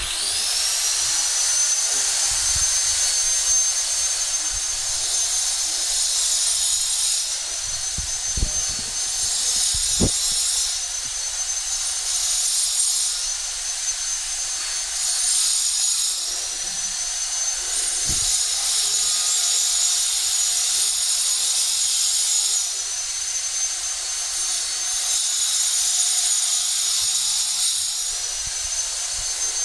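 Angle grinder switched on and spinning up with a rising high whine, then running steadily while cutting glass, with stretches of added hiss as the disc works.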